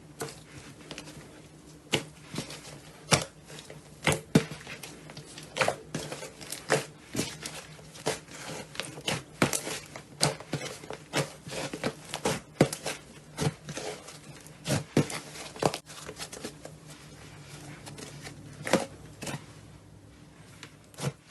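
Hands squeezing and poking slime, making irregular sharp pops and crackles, sometimes several a second. A steady low hum runs underneath.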